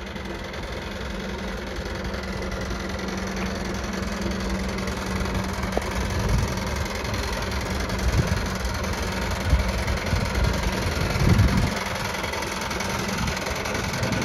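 Scania P124 400's DSC12 six-cylinder diesel idling steadily, with a few louder low rumbles in the second half.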